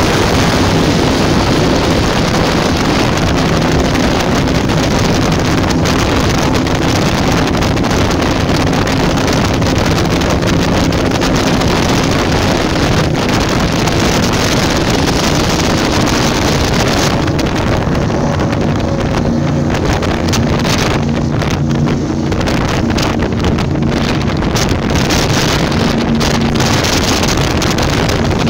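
Powerboat engines running at high speed over open water, a loud steady drone mixed with wind buffeting the microphone and rushing spray.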